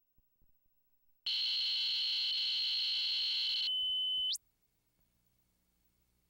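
A loud, high-pitched electronic tone, steady for about three seconds, then narrowing to a single whine that sweeps sharply upward and cuts off suddenly.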